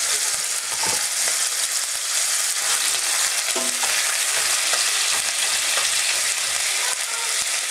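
Ground beef and sausage meat sizzling steadily in a hot oiled pan, with a utensil scraping and pushing through the meat now and then to break it up.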